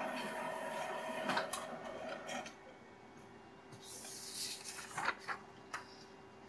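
OKI C711 colour laser printer running as it finishes printing a page with its newly fitted fuser unit, a steady mechanical hum with a few clicks, stopping about two and a half seconds in. A little later comes a rustle of paper and a few light clicks as the printed page is taken from the output tray.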